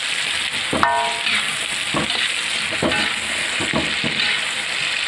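Salted shark and chilies sizzling in hot oil in a wok while a metal spatula stirs, scraping and knocking against the pan about once a second. One knock about a second in rings out briefly.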